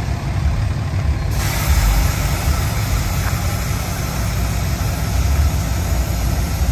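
A truck engine running with a deep, uneven low rumble. About a second in, a wider hiss joins it.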